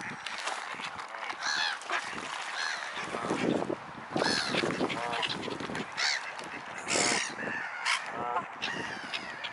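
A noisy flock of waterbirds calling over one another: many short, repeated honking calls, some low and some high-pitched, overlapping without a break.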